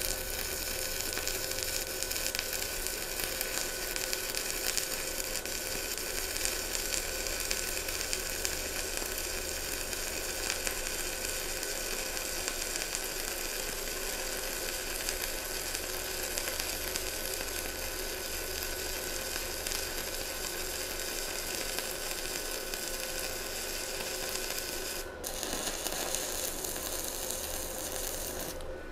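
Stick (arc) welding with a NANYA mini inverter welder: the electrode arc gives a steady crackling sizzle as a 2.5 mm rod burns down at about 160 amps. The arc falters briefly near the end, and the rod is burned down to its stub.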